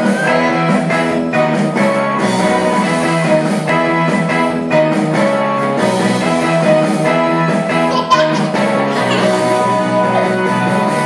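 Recorded children's counting song playing: lively music with guitar and a steady rhythm.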